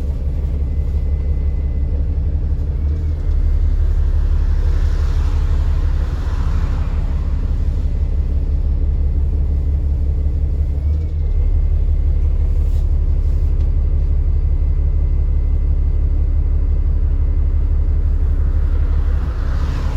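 Diesel engine of an Alexander Dennis Enviro 400 MMC double-decker bus running under way with a deep rumble and a thin steady turbo whine above it. The engine note steps up about three seconds in and again about eleven seconds in.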